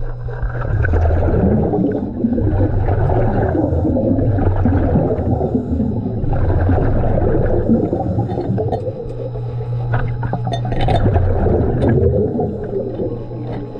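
A diver breathing underwater through helmet or mask gear: repeated swells of air rushing and bubbles gurgling out, one every second or two. A steady low hum runs beneath, dropping out about half a second in and returning after about nine seconds.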